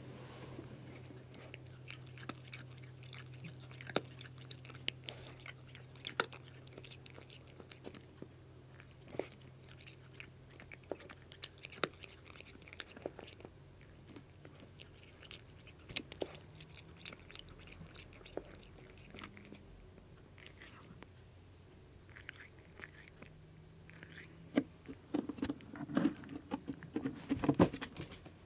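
A domestic cat chewing and crunching food from a ceramic bowl, with scattered sharp crunches and clicks. A cluster of louder knocks comes near the end.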